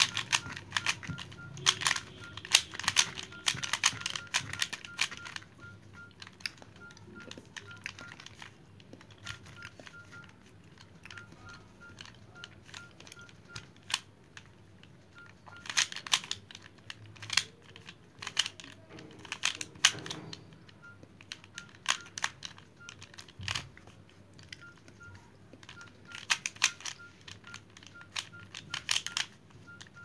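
Plastic stickerless 3x3 speed cube being turned quickly by hand. There are bursts of rapid clicking and clacking as the layers snap round, with quieter pauses between the bursts.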